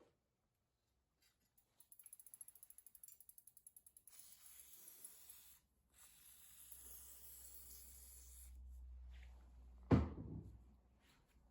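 Bicycle rear hub ratcheting with rapid clicking as the rusty chain is worked through the drivetrain, followed by steadier mechanical running noise. A single thump near the end is the loudest sound.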